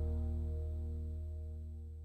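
The last chord of the outro music, a held chord over a deep bass note, fading out steadily.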